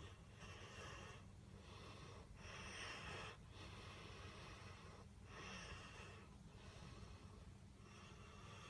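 Bullmastiff snoring in deep sleep: a faint run of hissy breaths, one every second or so.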